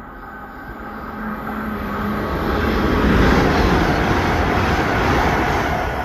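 Great Western Railway Intercity Express Train passing through the station at speed without stopping. The noise of wheels on rail and the rush of air swells over a couple of seconds, holds while the carriages go by, then starts to fade near the end.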